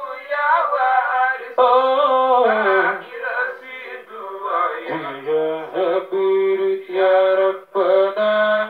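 A man's voice chanting a devotional song through a microphone, in long held notes that slide and bend in pitch, with brief breaths between phrases.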